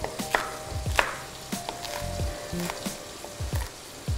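Knife chopping green chillies on a wooden cutting board: several separate knocks. Under them is the steady sizzle of chicken frying in oil in a covered kadai.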